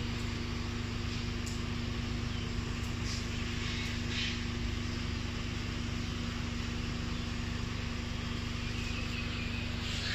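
Car engine idling with a steady, even hum. A few faint brief swishes come through over it.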